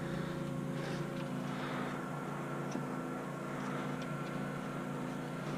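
A steady, even mechanical hum, with a few faint clicks on top.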